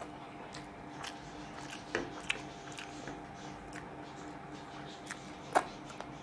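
Close mouth sounds of a person eating rice and fish curry with his fingers: scattered wet chewing clicks and lip smacks, the loudest near the end as he sucks his fingers, over a faint steady hum.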